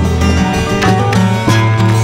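Background music with plucked string instruments over a strong bass line.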